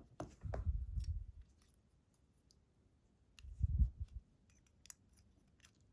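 Scattered small metallic clicks and ticks of lock parts and tools being handled during reassembly of a pin-tumbler challenge lock, with low handling thuds from about a quarter second to a second in and again a little past the middle.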